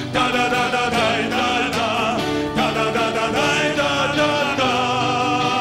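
Music: two acoustic guitars played together with a man singing a melody, in a break between sung verses.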